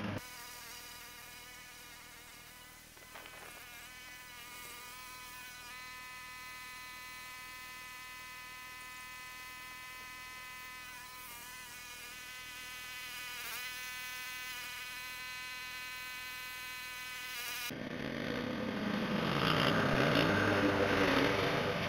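Walk-behind rotary lawn mower running, its sound sped up with the time-lapse, so it comes through as a steady high buzz that wavers a little midway. Near the end it turns louder and rougher as the mower cuts grass close by.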